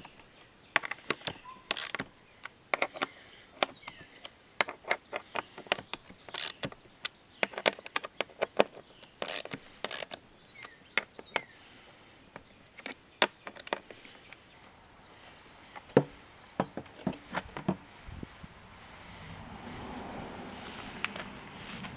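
Hand tools clicking and tapping on metal in an irregular run of sharp clicks, likely while the fuel-pump mounting bolts are fastened into the motorcycle gas tank. About three-quarters of the way in the clicks thin out and a soft steady rushing noise takes over.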